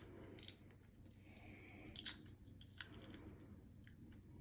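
Near silence: room tone with a few faint, light clicks, about half a second, two seconds and nearly three seconds in.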